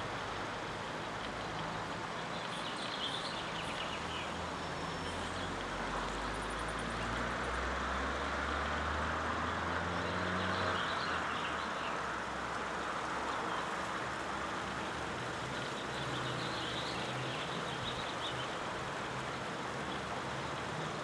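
Steady outdoor background noise with a low rumble that swells in the middle, and brief high chirps three times.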